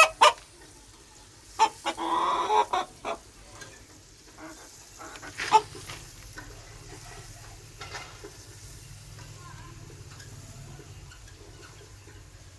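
Aseel rooster clucking and calling: a handful of loud calls in the first half, one drawn out for about a second, then only scattered soft sounds over a steady low hum.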